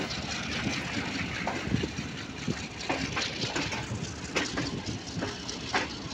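Passenger train running, heard from an open coach door: a steady rushing noise with irregular sharp clacks of the wheels passing over rail joints and points.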